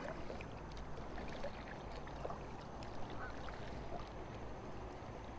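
Faint sounds of a plastic kayak being paddled through dense lily pads and stiff dead lily stalks: a low steady rustle with scattered small ticks and drips.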